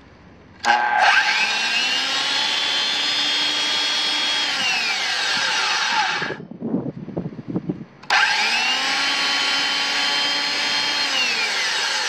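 Corded Rockwell 315 7-1/4 inch circular saw with no blade fitted, run twice: each time the motor whines up to speed, runs steadily for a few seconds, then winds down in a falling whine over about a second and a half after the trigger is let go, with no brake to stop the arbor.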